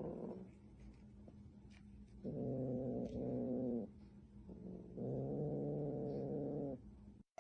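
A cat making long, low, drawn-out yowls, three of them with short pauses between.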